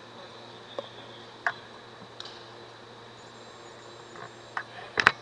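Sparse sharp knocks and short squeaks from an indoor futsal game on a parquet floor: ball kicks and shoe squeaks, with the loudest knock, a quick double, near the end.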